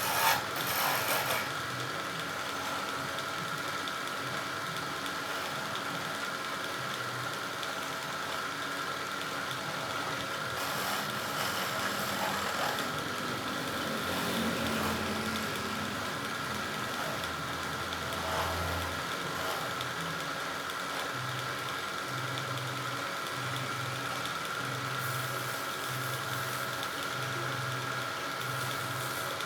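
Wood lathe running with its motor humming steadily, after a brief scrape of a turning tool on the wood at the very start. In the later part a low throb pulses about once a second.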